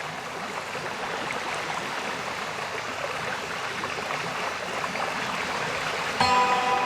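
Steady rushing water of a cascading waterfall. Near the end, sustained notes of ambient background music come in abruptly over it.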